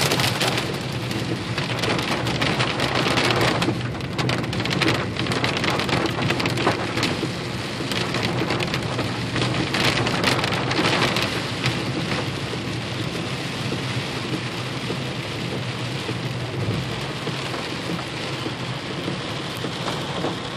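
Hail and heavy rain pelting a car's roof and windshield, heard from inside the car. A dense hiss is peppered with many sharp ticks of hailstones, which thin out after about eleven seconds into a steadier rain sound.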